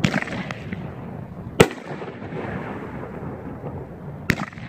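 Golden Bear 'Pyro Boy' consumer aerial firework going off with three sharp bangs: one at the start, the loudest about a second and a half in, and one near the end.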